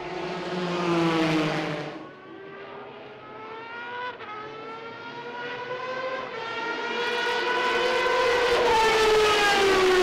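Toyota TS010 race car's 3.5-litre V10 at high revs on track, a high wail. Its pitch falls as the car passes, then climbs through the gears with a brief break at a gearshift about four seconds in. It grows louder from about seven seconds, and the pitch drops near the end as the car goes by close.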